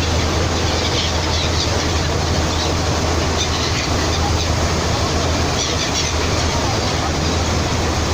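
Seagulls giving scattered short high cries, a few times, over a steady loud rushing noise with a low hum beneath.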